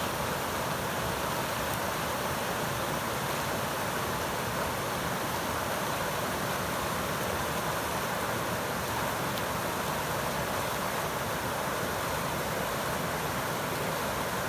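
Flowing river water rushing steadily, with no change in level.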